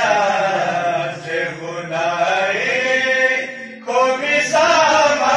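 Voices singing a devotional kalam in a chant-like style, holding long notes that waver in pitch. A new loud phrase starts about four seconds in.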